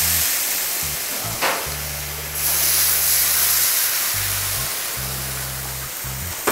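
Water poured into a hot iron kadai of masala-fried chicken, hissing and sizzling loudly as it flashes to steam. The hiss surges again about two and a half seconds in, with background music underneath.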